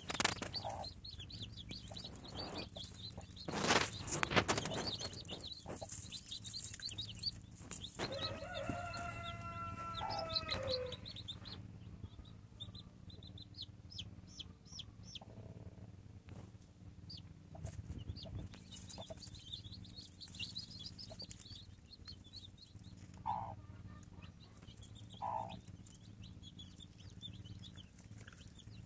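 Newly hatched chicks peeping in many short high cheeps around a broody hen, with a loud rustle about four seconds in. About eight seconds in the hen gives one drawn-out call that drops in pitch at its end, and near the end she clucks twice.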